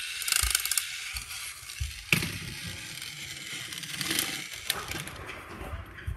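Rustling and crinkling handling noise with scattered clicks, and a sharp click about two seconds in.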